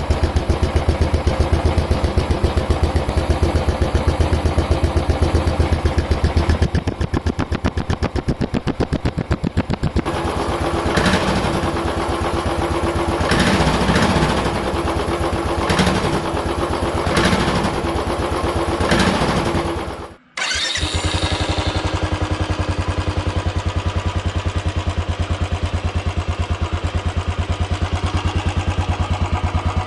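Royal Enfield Classic single-cylinder motorcycle exhaust idling with an even thump, then blipped repeatedly with short revs. About two-thirds through the sound cuts out abruptly, and another Royal Enfield Classic single picks up idling with a deeper, heavier thump.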